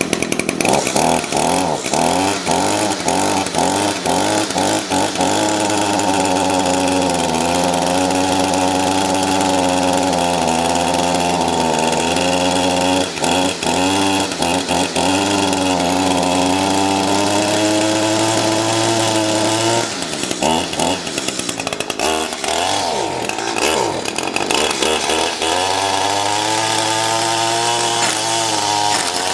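Echo SRM-225 string trimmer's small two-stroke engine running after a tune-up, at first steady with a slightly wavering pitch, then revved down and up several times from about twenty seconds in and held higher near the end. It now picks up speed well: the new fuel filter, air filter and spark plug and the drained, bug-fouled fuel seem to have cured its poor acceleration.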